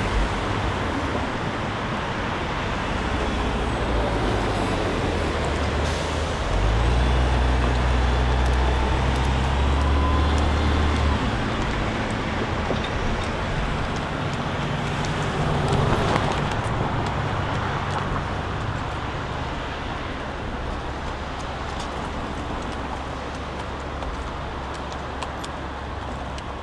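Road traffic on a busy street: steady tyre and engine noise, with a deep engine drone loudest from about a quarter of the way in to near halfway, and a vehicle passing close a little past midway.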